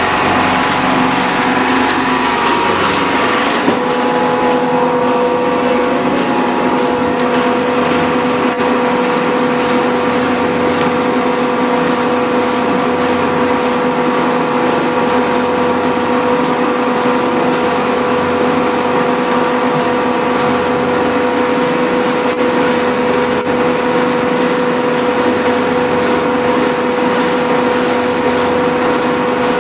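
Electric-motor-driven horizontal true stone paint and mortar mixer running steadily: a continuous machine hum with a steady tone.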